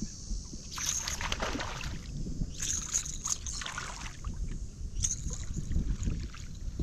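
Hooked spotted bass thrashing and splashing at the water's surface beside the kayak, in three bursts, over a steady low wind rumble on the microphone.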